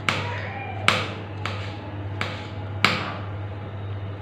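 Kitchen knife chopping ginger into slices on a cutting board: about five sharp knocks at a steady pace in the first three seconds, over a steady low hum.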